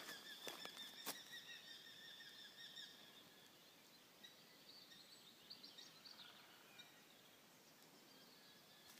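Faint morning forest ambience: a high, wavering tone with overtones fades out over the first three seconds, a couple of sharp clicks come near the start, and faint bird chirps sound about five to six seconds in over a quiet hiss.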